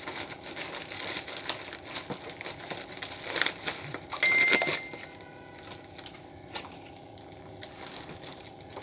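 Packaging crinkling and rustling with many small clicks as a boxed karaoke speaker is handled. About four seconds in comes a short high squeak, the loudest sound, after which the handling is fainter, with only scattered clicks.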